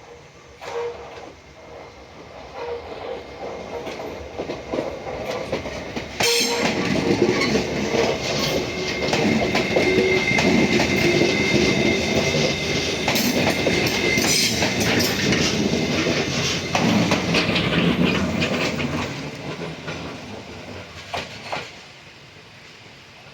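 E491 'East i-E' electric inspection train passing close by, its wheels clattering over the rail joints in repeated clicks. It grows louder over the first few seconds, jumps sharply in loudness about six seconds in as it reaches the crossing, and fades away over the last few seconds.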